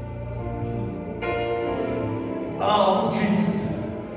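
Slow church worship music of sustained chords, with a voice singing over it from a little past the middle.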